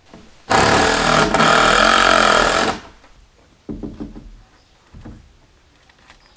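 A power tool runs in one long burst of about two seconds, then in two short bursts.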